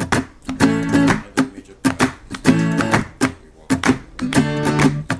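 Background music: an acoustic guitar strumming chords in a steady rhythm, with no singing.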